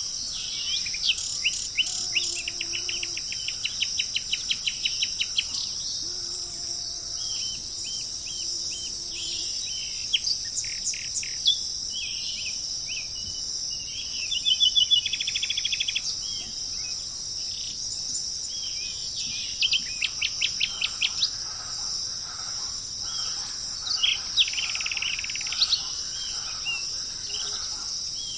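Songbirds singing several bursts of quick repeated notes and chirps over a steady, high-pitched insect drone.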